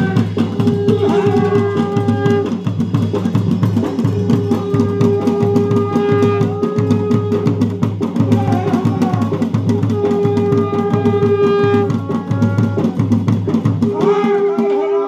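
Garhwali jagar ritual music: fast, steady drumming with a held melodic note that returns every few seconds over the beat.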